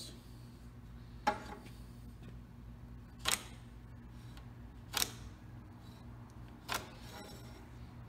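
Four sharp clicks, roughly two seconds apart, over a steady low hum: a metal speed square being set and shifted against the wooden boards while stud locations are marked out.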